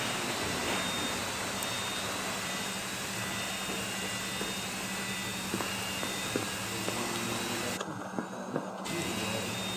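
Steady mechanical hum and hiss with a low drone, with a few faint clicks.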